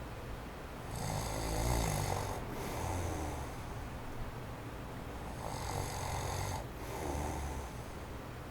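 A man snoring in his sleep: two snoring breaths about four seconds apart, each a noisy snore followed by a lower buzzing one. Under them is the faint steady wind noise of an electric fan running on its low setting.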